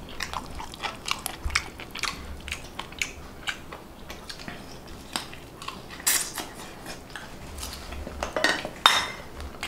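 Scattered small clinks and taps of plates, glasses and a spoon on a dining table during a meal eaten by hand, with chewing sounds. A few louder clatters come about six seconds in and again near the end.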